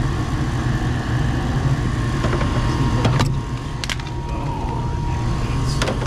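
Payne gas furnace running: a steady low motor hum with a faint steady whine above it, broken by a few sharp clicks around the middle and near the end.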